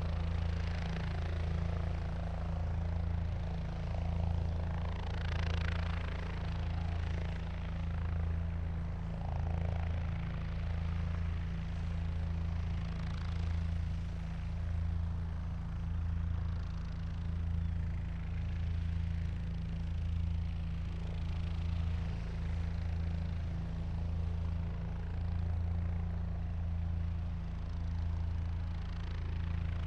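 Helicopter engine and rotor running steadily: a low, evenly pulsing hum under a rushing hiss that gently swells and fades every couple of seconds.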